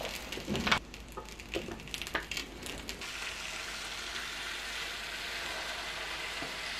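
Fried rice sizzling on the hot plates of an electric waffle maker, turning into a steady hiss once the lid is pressed down on it. A few knocks of the lid and handles being closed come in the first couple of seconds, the loudest just under a second in.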